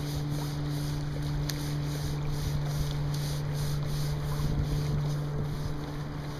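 Wind buffeting the microphone over open water, with a steady low hum underneath.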